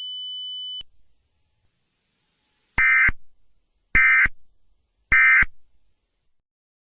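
Emergency Alert System end-of-message data bursts: three short, identical digital SAME header bursts about a second apart, the EOM code that closes the alert. Just before them, a steady high tone cuts off just under a second in.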